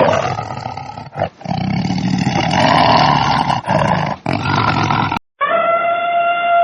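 A big cat roaring, a loud rough call broken by a few short gaps, then after a brief pause about five seconds in a wolf begins a long steady howl.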